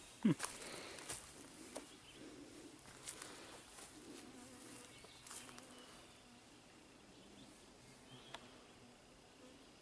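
Biting flies buzzing close around the microphone: one passes right by about a third of a second in, its buzz dropping in pitch as it goes, and fainter buzzing follows over the next few seconds. Light clicks are scattered through.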